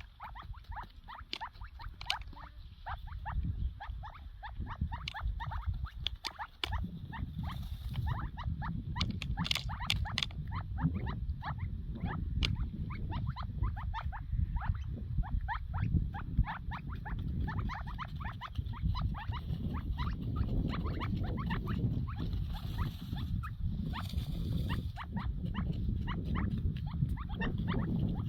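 Partridge chicks peeping in quick, high little chirps, many calls overlapping throughout. Underneath there is a steady low rumbling noise.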